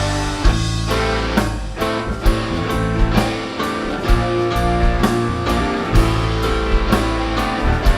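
Live band playing an instrumental rock intro: guitar, bass and drum kit on a steady beat of about two hits a second, with no vocals yet.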